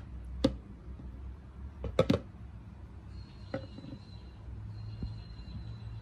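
A few light clicks and knocks of a steel bolt against a plastic tub as it is lifted out of rust-remover solution, the loudest a quick double knock about two seconds in. A faint high steady whine sits in the background from about halfway.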